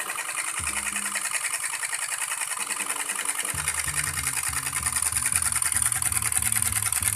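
Small homemade hot-air Stirling engines running, their pistons and crank linkage making a fast, even mechanical clatter that grows louder in the second half.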